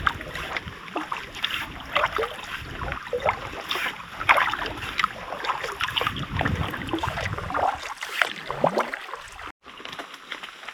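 Canoe paddling: a paddle dipping and splashing in lake water, with irregular splashes and drips against the canoe. The sound cuts off abruptly near the end and is quieter after that.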